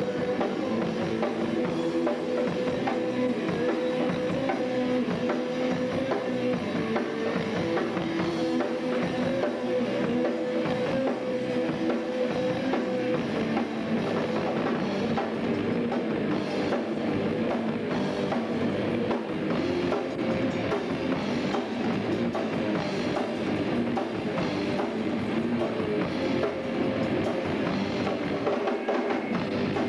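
Live rock band playing: electric guitars and bass over a full drum kit, with long held notes through the first half.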